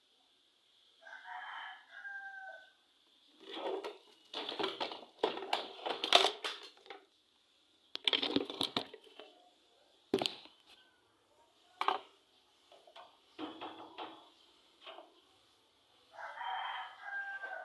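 A rooster crowing twice, about a second in and again near the end. In between come bursts of clattering and sharp knocks.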